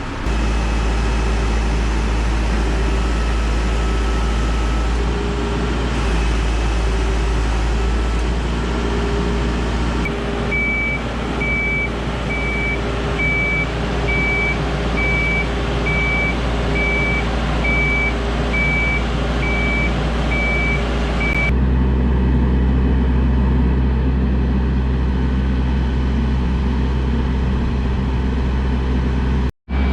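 Boatyard travel lift's engine running steadily, with its warning alarm beeping about once a second through the middle stretch. The engine sound changes abruptly about two-thirds of the way through and drops out for a moment near the end.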